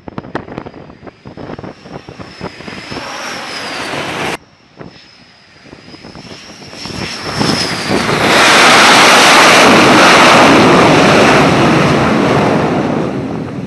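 Super Hornet jet approaching to land on an aircraft carrier, its twin jet engines whining with a wavering high tone; the sound breaks off suddenly about four seconds in. The jet noise then builds into a loud roar as the jet comes aboard and runs its engines up on the arrested landing, easing off near the end.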